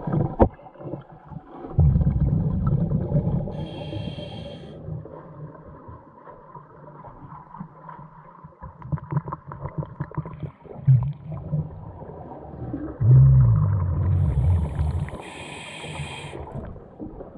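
Scuba diver breathing through a regulator underwater: two long low rumbles of exhaled bubbles, about 2 s and 13 s in, each with a short hiss from the regulator, and scattered small knocks and scrapes between.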